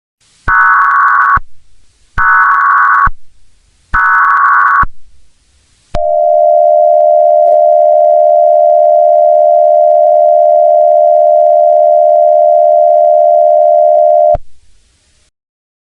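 Emergency Alert System tones: three short bursts of buzzing digital header data, each about a second long, then a steady alert tone held for about eight seconds that cuts off suddenly.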